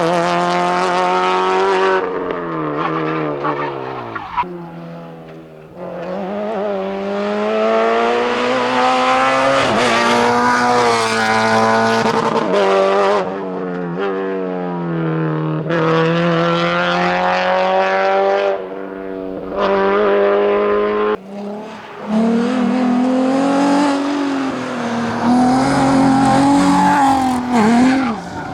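Subaru BRZ rally car's flat-four engine revving hard, its pitch climbing through the gears, dropping at each shift and backing off now and then under braking. About three-quarters of the way through, it gives way to an Alfa Romeo 156 GTA's V6 engine at high revs.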